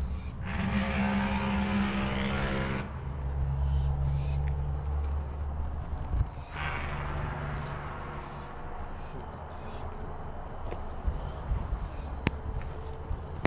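A cricket chirping steadily with short, evenly spaced high chirps, a few a second, over a low rumble. The rumble swells louder twice: over the first three seconds and again about six seconds in. There is one sharp click near the end.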